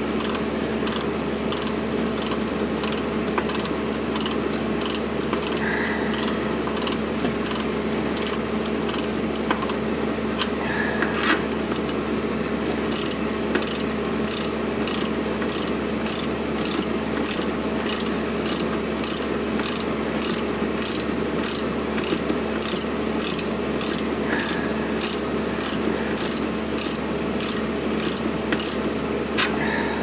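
Central air conditioner condensing unit running steadily: an even hum with a fast, regular ticking about twice a second.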